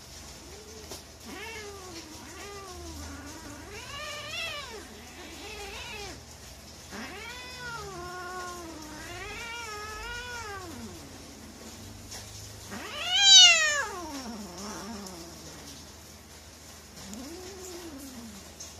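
A cat gives a string of drawn-out yowls and meows, each rising and then falling in pitch, while being held down in rough play-wrestling by another cat. The loudest is one high yowl about two-thirds of the way through that slides down, and a shorter call comes near the end.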